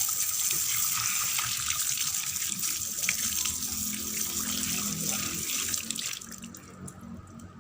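Water running from a tap into a sink, splashing, until the flow stops about six seconds in.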